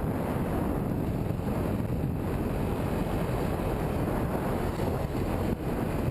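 Steady wind rumble on a helmet camera's microphone while riding a dirt bike along a gravel trail, mixed with the bike's running engine.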